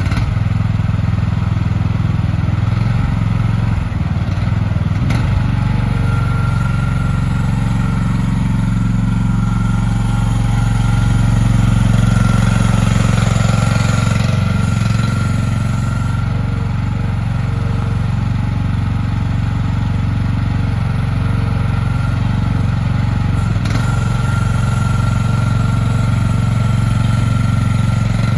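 Lanty LAT-13S mini excavator's small engine running steadily while the machine is worked, with a high thin whine that comes and goes and a slight rise in engine loudness near the middle.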